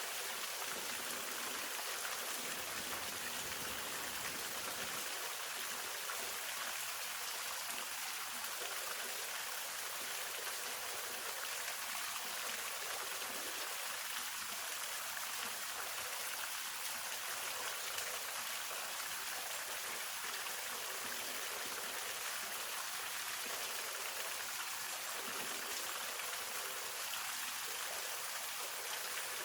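Hongryu Falls on Sinbulsan: a waterfall's steady, even rush of falling water, mostly hiss with little bass.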